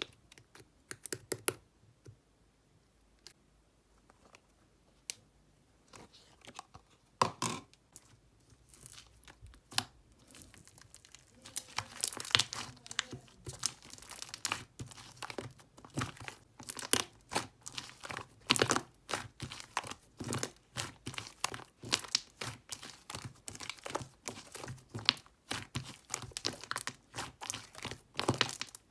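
Paper or plastic being crinkled and torn: scattered rustles at first, then dense, rapid crinkling from about eleven seconds in.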